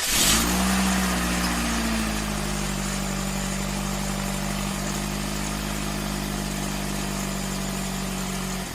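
Car petrol engine idling steadily, its pitch settling slightly lower over the first couple of seconds.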